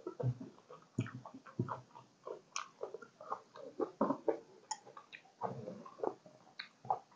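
A person chewing and biting Isan sausage with fresh ginger close to the microphone: irregular short crunching clicks.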